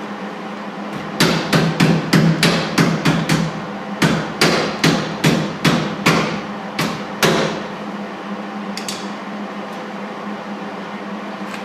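Hammer tapping on thin sheet-metal body panel, two runs of quick metallic blows about three a second with a short pause between them.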